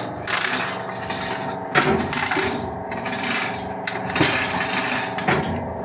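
Metal clinking, knocking and scraping as a transformer is worked on by hand, with a steady hum underneath.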